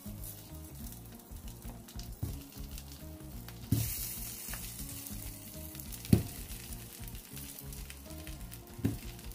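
Boiled corn cobs laid into a stainless steel frying pan of hot melted butter, sizzling steadily. The sizzle flares up about four seconds in, and there are three knocks of cobs landing in the pan, the loudest about six seconds in.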